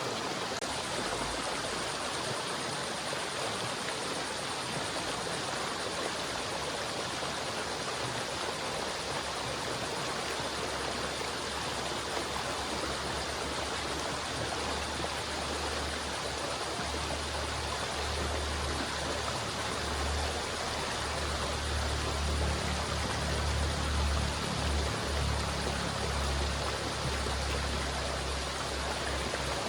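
River water rushing and flowing steadily. A low rumble builds underneath from about ten seconds in and is strongest in the second half.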